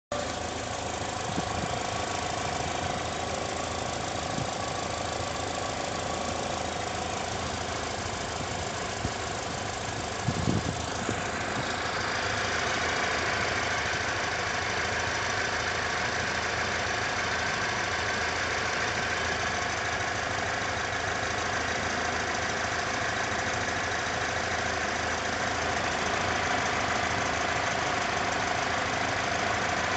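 An engine running steadily, with a constant tone, that turns a little louder and brighter about eleven seconds in.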